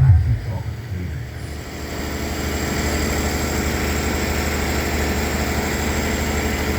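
A steady, engine-like roaring noise played through a large DJ sound-box setup, in a break in the bass-heavy music. It dips at the start, swells over the next two seconds, then holds steady.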